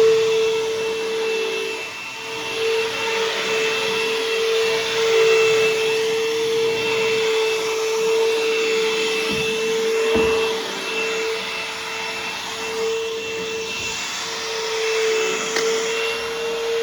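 Bissell CleanView Helix bagless vacuum running steadily: a strong motor whine holding one pitch and wavering slightly, over a rushing hiss of air. A couple of light knocks come about nine and ten seconds in.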